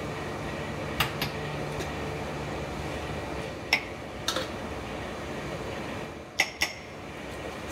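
A metal spoon clinking against stone dizi pots as a filling is spooned in: six short clinks in three close pairs, over a steady low kitchen hum.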